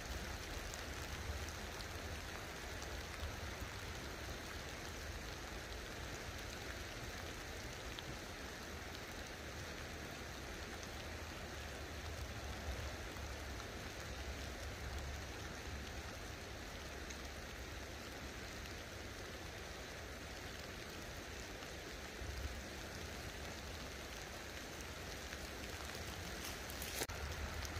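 Light rain falling on a slow river and its grassy bank, a steady even hiss with a low rumble underneath. A few sharp clicks come near the end.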